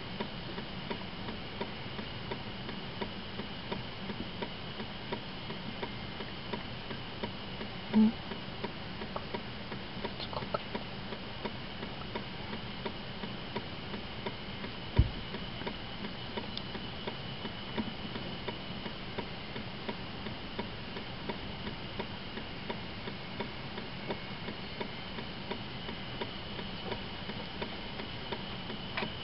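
Car's indicator flasher ticking steadily at a quick regular rate over a low steady hum, the sound of a car stopped with its flashers on. About 8 seconds in a short loud low tone cuts in, and about 15 seconds in there is a single sharp thump.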